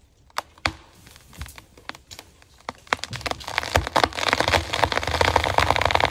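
Wood fibres in a fir's hinge cracking and popping as the cut tree starts to tip over. A few sharp cracks at first, then from about halfway a rapid crackle that grows louder and denser.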